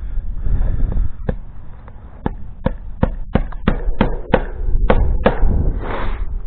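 A hammer striking, about ten sharp blows in a quick, uneven series, each with a short ring, while fastening the chain and latch on a gate.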